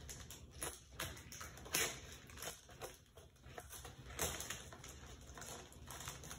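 Plastic toy packaging being handled and opened: a string of irregular crinkles and crackles.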